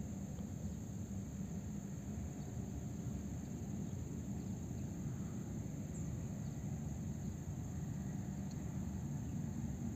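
Steady low rumble and hiss inside a ropeway gondola cabin travelling along its cable.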